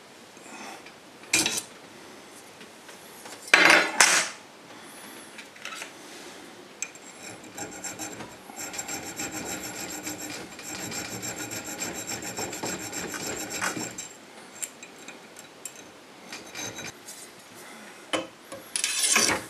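Metal file rasping at the slot of a steel dagger guard held in a bench vise, in a steady run of strokes for several seconds in the middle. Short, loud metal-on-metal scrapes come near the start and again near the end as the blade's tang is pushed into and drawn out of the slot for a test fit.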